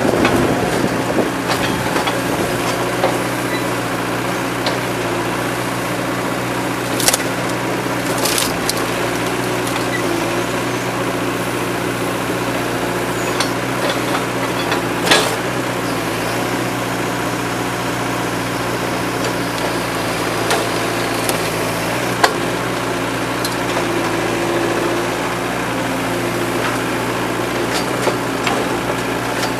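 Komatsu PC40-7 mini excavator's diesel engine running steadily, with a few sharp knocks as the machine works demolition debris over a steel dumpster.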